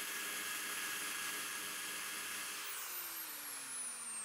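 Handheld electric rotary grinder with a bur running in the intake port of a motorcycle cylinder head, grinding carbon and metal. About two-thirds of the way through it is switched off and winds down with a falling whine.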